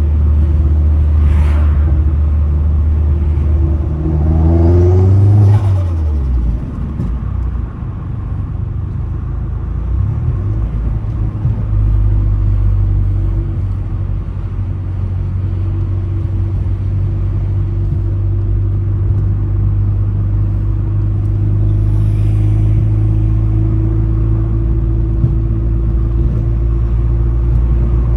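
Vauxhall Astra H VXR's turbocharged 2.0-litre four-cylinder engine revving up and dropping off sharply about six seconds in, with a short hiss of turbo flutter as the throttle is lifted. It then runs on at a steady low engine speed.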